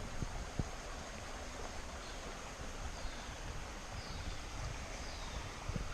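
Steady rush of flowing stream water, with wind buffeting the microphone and a few faint, high, falling chirps.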